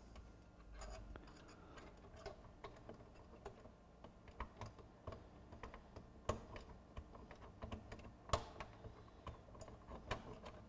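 Irregular small clicks and taps of fingers and a small tool against the plastic and metal parts inside a Pioneer PD-DM802 CD changer's disc mechanism, with one sharper click about eight seconds in.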